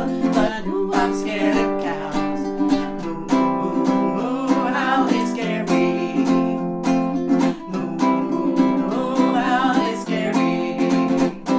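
Baritone ukulele strummed in a steady rhythm, with two women singing along.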